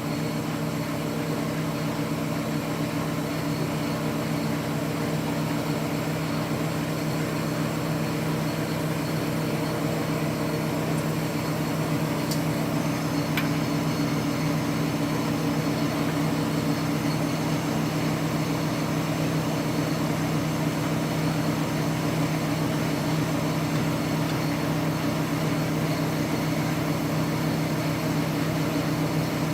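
Steady mechanical hum of an electric motor running without a break, strongest in a low pitch with an overtone about an octave above.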